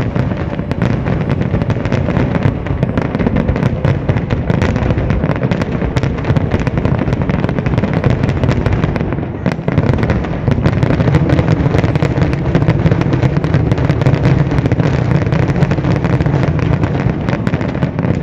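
Aerial fireworks display: a dense, continuous barrage of shell bursts and crackling, easing briefly a little past halfway before building up again.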